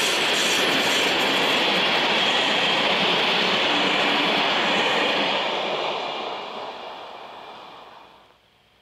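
Freight train of flat wagons hauled by a class 740 diesel locomotive passing close: loud steady rumble and rattle of wheels on the rails, fading away from about five seconds in and cutting off shortly before the end.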